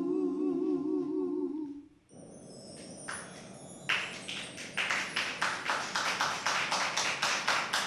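Male a cappella vocal group holding a final chord with vibrato, which ends about two seconds in. Clapping follows a second or two later, several claps a second.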